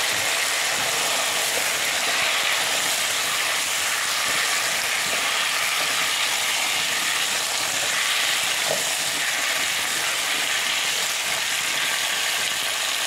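Diced potatoes sizzling in hot oil with onion and tomato paste in a metal pot while being stirred with a spoon: a steady frying hiss.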